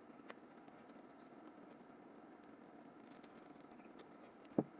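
Faint scratching and small plastic clicks of a glued plastic part being pried off a Nokia 6170 phone housing against strong adhesive, with one sharper click near the end.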